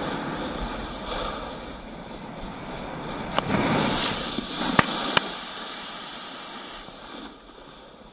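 Wind rushing over a helmet camera and a rider sliding over snow. About three and a half to five seconds in come a few sharp knocks as the rider goes down into the snow, then the rushing fades.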